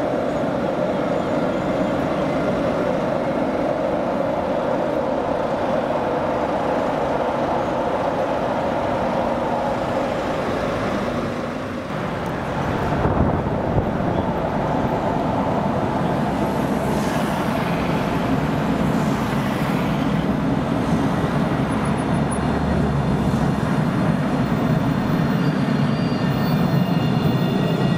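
Alstom Citadis 402 low-floor trams running on their rails. After a break about twelve seconds in, a tram comes up out of the tunnel toward the listener and passes close by, its low rumble building toward the end.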